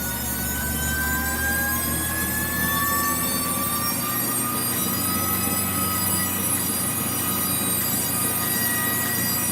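Continuous high-pitched squealing made of several shrill tones at once, some slowly rising in pitch, over a low rumble.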